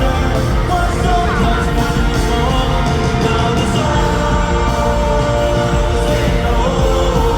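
Live pop concert music: singing over a loud backing track.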